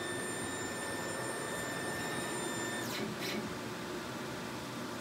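Brother GTX direct-to-garment printer running: a steady machine hum with a high whine that cuts off suddenly near the three-second mark, followed by two quick sweeping sounds from the mechanism.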